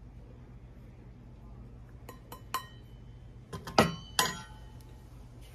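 A metal measuring cup clinking against a glass jar and a mesh sieve while rice flour is scooped and sifted: a few light clicks about two seconds in, then louder ringing clinks near four seconds.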